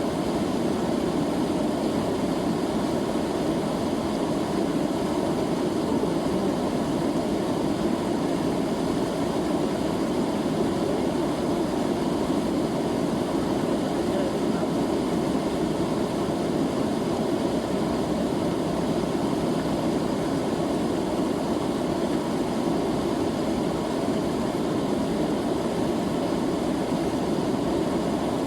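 River water flowing, a steady rushing noise that holds even throughout.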